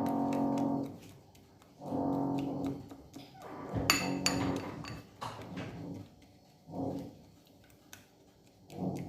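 Background music of held, horn-like notes in phrases about a second long, with quiet gaps between them, and a few short clicks, the sharpest about 4 seconds in.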